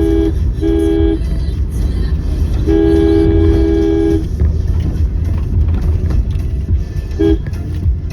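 A vehicle horn sounds a two-note chord in repeated blasts: one trails off just after the start, a short toot follows, then a longer blast of about a second and a half, and a brief toot comes near the end. Under it runs a steady low rumble of engine and traffic.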